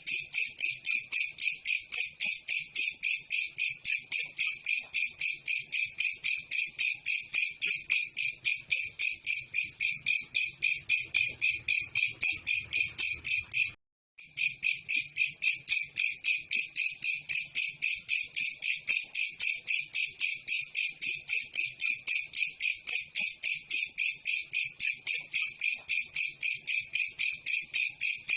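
Belalang kecek insect singing: an even, rapid train of high-pitched chirping pulses, about three a second. There is a brief break about halfway through.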